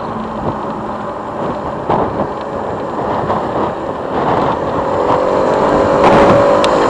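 Motorcycle engine running as the bike rides along, then accelerating from about four and a half seconds in with a rising engine note. Wind rush on the microphone grows louder toward the end.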